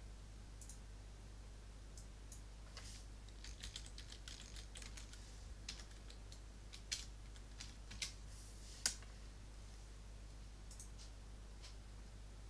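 Faint typing and clicking on a computer keyboard: an irregular run of key clicks for several seconds, with three sharper clicks near the end of the run, over a steady low hum.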